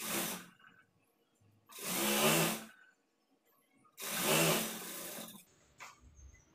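Sewing machine stitching a folded sleeve hem in three short runs, the middle and last ones about a second long, each starting and stopping abruptly.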